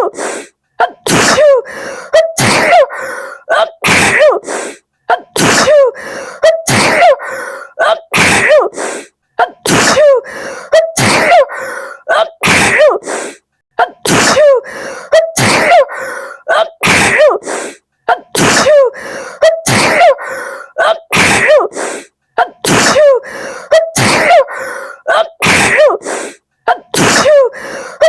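A woman sneezing over and over in a fit, several sharp sneezes every few seconds, each with a short voiced 'ah' before it. The same stretch of sneezes repeats again and again as a loop.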